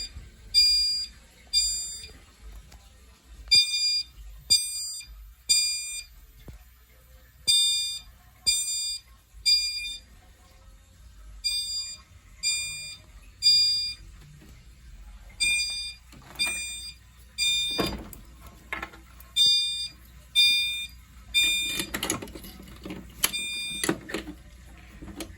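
Fire alarm notification appliances sounding the temporal-three evacuation pattern: three high-pitched tones of about half a second each, a second apart, then a pause, repeating every four seconds. Knocks and handling clatter come in over the second half.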